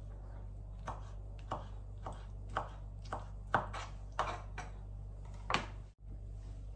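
Kitchen knife chopping tomato on a plastic cutting board: about ten short, sharp strokes at a slow, even pace of roughly two a second.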